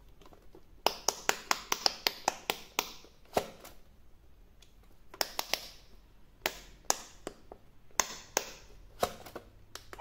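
Silicone bubble buttons of an electronic quick-push pop-it game being pressed with the fingers, each giving a sharp click. A quick run of about a dozen clicks comes about a second in, then single and paired clicks spaced out for the rest of the time.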